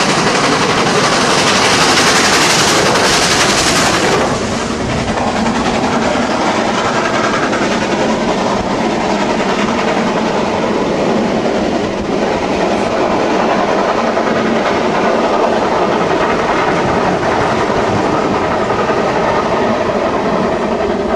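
Two four-cylinder GWR steam locomotives, 6024 King Edward I and 5029 Nunney Castle, passing close below with a heavy train. Their exhaust and steam are loudest for the first four seconds or so, then the coaches roll past on the rails in a steady run.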